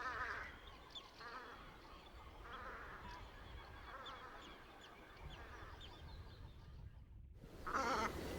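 Sea ducks calling: a run of quavering, nasal calls about every second and a half that grow fainter. After a brief break in the sound, louder calls come near the end.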